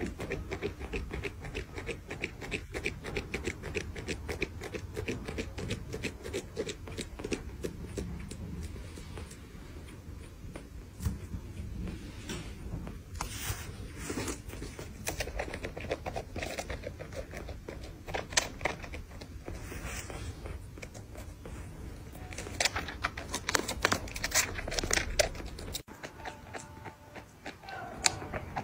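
Kitten suckling on a milk bottle's teat: a stream of rapid small sucking clicks with occasional scraping of paws on the plastic bottle.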